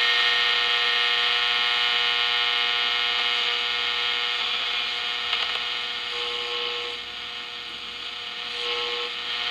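Shortwave receiver's speaker giving a steady hiss of static with a buzz of many steady tones and a held low whistle, with no voice coming through. The static fades a little past the middle and comes back up near the end.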